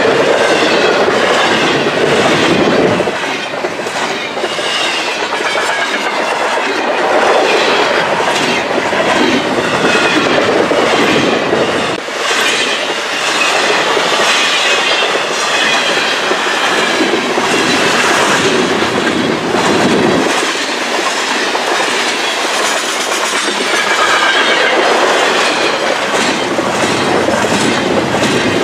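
Freight train of double-stack intermodal well cars, with a few flatcars and tank cars, rolling past at track speed: a steady rumble of steel wheels with rhythmic clicking over the rail joints.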